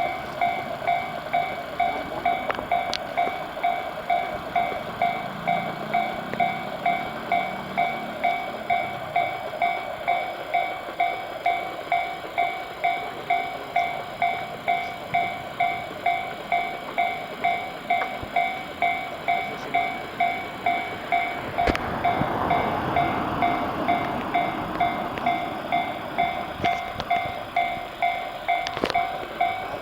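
Japanese level-crossing warning bell ringing steadily in an even rhythm. About 22 s in, a train goes by over it.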